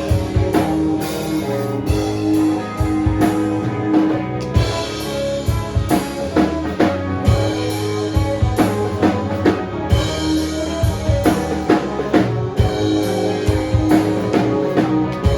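A rock band playing live, with a drum kit keeping a steady beat under guitar.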